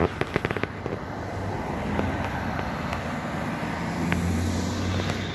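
Cars passing on the road close by: tyre and engine noise that swells and holds through the middle and later part. There is a quick run of small clicks in the first second.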